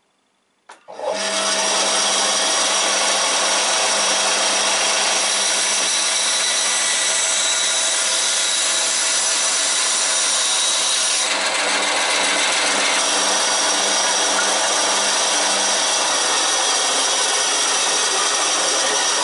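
EMCO BS-2 three-speed band saw switched on about a second in with a click, then running steadily with a low motor hum as its blade saws through a piece of dry pine; the sound changes in character about halfway through.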